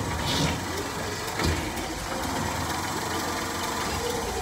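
A 1996 Honda Acty truck's small three-cylinder engine idling steadily, heard from beneath the truck, with a couple of short knocks about half a second and a second and a half in.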